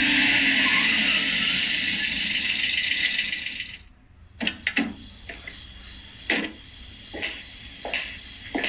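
A loud, steady hiss fades out about four seconds in, followed after a short pause by irregular sharp clicks, roughly one a second, over a faint steady high background: sound effects in a scene change of a radio drama.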